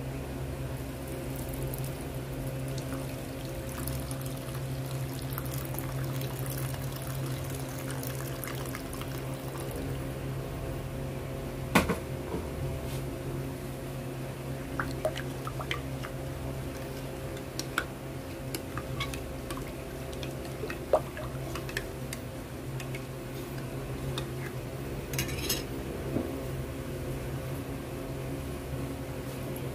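Warm water poured into a ceramic bowl, then a metal spoon stirring the soapy water and clinking against the bowl now and then, once sharply near the middle. A steady mechanical hum runs underneath.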